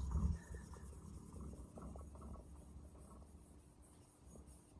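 Atoma 400 diamond plate being rubbed over a wet King Deluxe 1000 waterstone to flatten it: faint, irregular scraping that fades toward the end. The plate drags and sticks on a coating that the owner thinks was put on the new stone.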